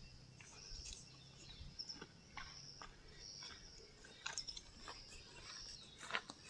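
Faint forest ambience: small birds chirping in short, high notes over a thin high background, with a few soft rustles.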